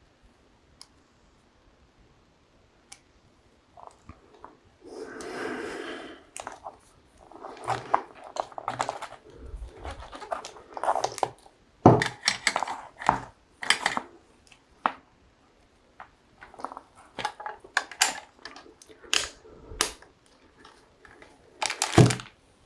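Handling noise from a soldering set and its packaging: a second-long rustle, then a run of irregular clicks, knocks and small clattering sounds, the sharpest near the middle and near the end.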